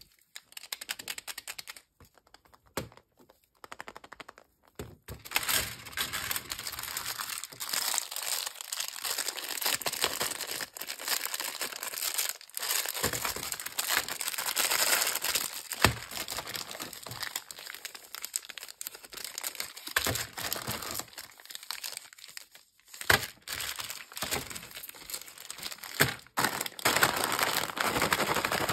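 Foil and plastic candy wrappers crinkling and crackling as they are unwrapped and handled by hand, with a few light clicks and taps in the first few seconds. Near the end a crinkly snack bag is handled.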